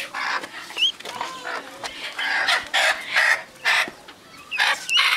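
Chickens squawking in a run of short, loud calls as they are held in people's hands, with a few brief high chick peeps in between.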